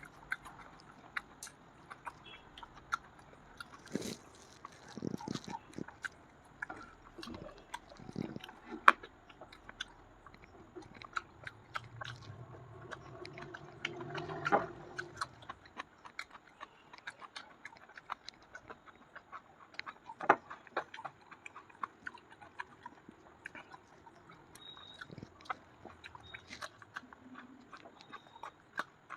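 Close-up mouth sounds of a person eating kachori or luchi with chicken curry: chewing and biting with many small, irregular clicks and smacks.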